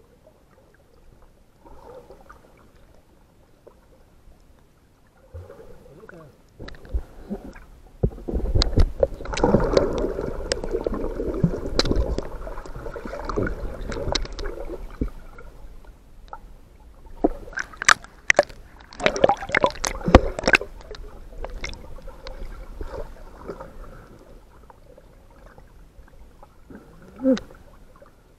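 Water sloshing and gurgling with splashes, close to the microphone. It is loud in two long stretches, the first from about eight seconds in and the second a little later, with one short splash near the end.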